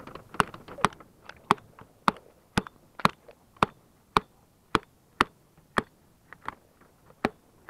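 Manual staple gun firing staples through wire mesh into a wooden frame: a steady run of sharp snaps, about two a second.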